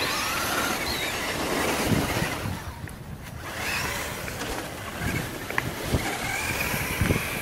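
Radio-controlled off-road cars driving on dirt: their motors whine, rising and falling in pitch several times as they speed up and slow, over a rough noisy hiss, with a few sharp clicks near the end.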